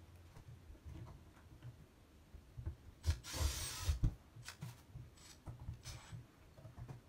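Cordless drill-driver running for about a second as it drives a screw into a wall switch, about three seconds in, followed by a couple of shorter pulses, amid light rubbing and handling noise.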